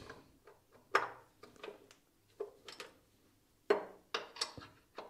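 Light metallic clicks and clinks of a steel spanner against the brass fittings of a pneumatic valve block, about ten short taps at uneven intervals.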